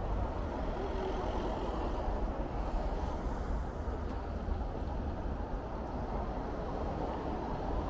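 Steady city traffic noise: the even, continuous rumble of passing road vehicles on a street.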